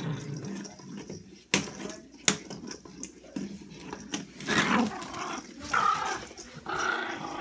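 A small Morkie dog vocalizing while playing with its toys, with two sharp knocks about a second and a half and two seconds in. The rougher dog sounds come in the second half.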